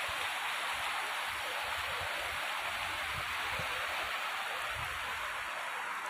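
Shallow river water babbling steadily over stones and gravel.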